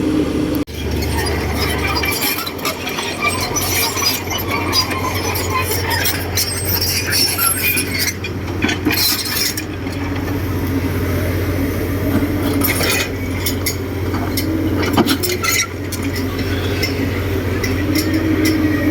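Diesel engine of heavy earthmoving machinery running steadily while working, with many scattered metallic clinks and scrapes over it.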